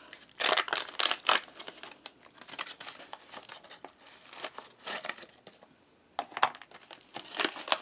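Foil ration cracker packet being torn open and crinkled by hand as the crackers are pulled out. Sharp tearing and crackling, loudest in the first second and a half, with a short lull near the end before more crinkling.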